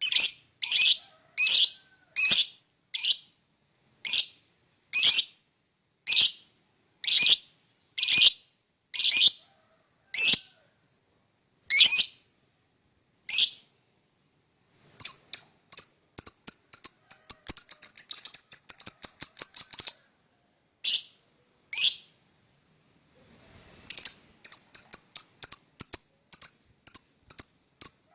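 Lovebird giving sharp, high-pitched chirps, about one a second at first, then a fast run of rapid chirps. After a brief pause the quick chirping starts again near the end.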